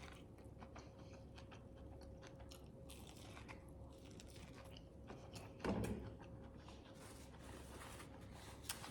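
Faint chewing and small wet mouth clicks from someone eating BBQ chicken wings close to the microphone, with one brief louder mouth sound about two-thirds through and a faint steady hum underneath.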